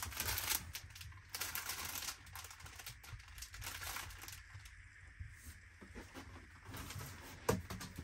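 Crinkling of a bouquet's plastic wrapping and rustling of packaging while items are handled and lifted out of a cardboard box, with scattered light clicks and one sharper knock near the end.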